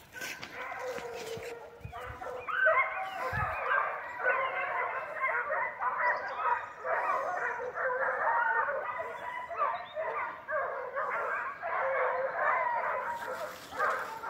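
A pack of hunting hounds giving tongue: a few voices at first, then from about two seconds in the whole pack in full cry, many overlapping bays.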